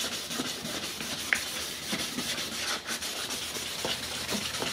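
Wet sanding by hand with 1000-grit sandpaper on a sanding pad, scrubbed back and forth over a plastic headlight lens: a continuous rasping rub, the stage that takes out the 600-grit scratches before polishing.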